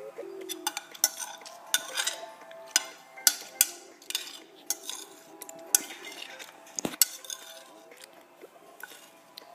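A series of sharp, irregular clicks and clacks of hard objects, about a dozen, with a faint steady tone underneath.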